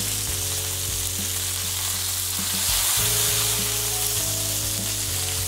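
Bone-in, skin-on chicken thighs sizzling in cast iron pans on gas burners: a steady frying hiss, a little louder around three seconds in.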